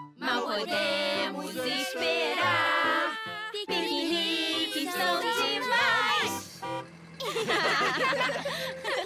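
Cheerful children's cartoon song: the cat characters' voices sing over backing music, with several voices together near the end.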